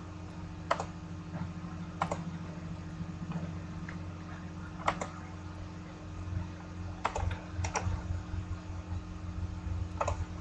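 About seven separate clicks of computer keys, pressed one to three seconds apart, two of them in quick succession near the middle, as someone tries to get a frozen computer to respond. A steady low hum runs underneath.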